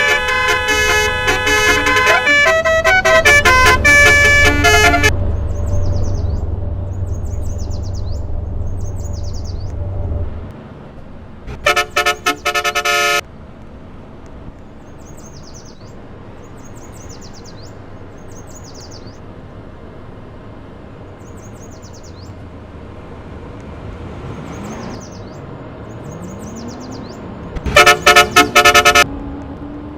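Electronic multi-tone car horn playing a melody of steady notes for about five seconds over a low engine hum. Two loud runs of rapid, stuttering horn blasts follow, one about twelve seconds in and one near the end, with faint high chirps repeating in the quieter gap between them.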